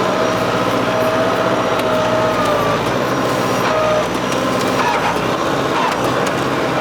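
New Holland WorkMaster 55 tractor's diesel engine running under load while the stump bucket grapple digs at tree roots, with a high, drifting whine over the engine that stops about four seconds in and a few faint cracks.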